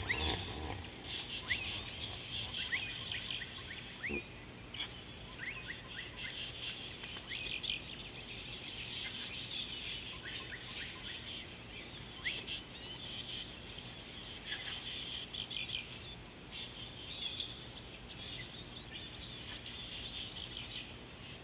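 Wild birds chirping and calling, a busy run of short high notes and quick pitch sweeps. A low hippo grunt trails off right at the start.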